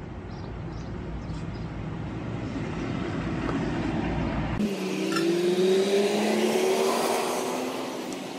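A motor vehicle's engine running and growing louder, its pitch rising after about halfway. It is loudest near the end, then eases off, like a vehicle approaching and passing.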